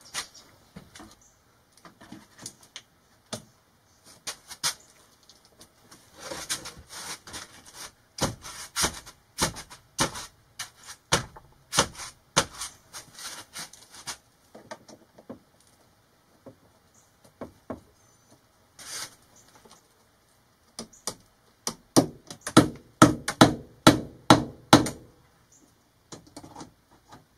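Hand work on a wooden cabinet as it is fitted and clamped with a trigger bar clamp: scattered clicks, knocks and rubbing. Near the end comes a quick run of loud, sharp knocks, about four a second.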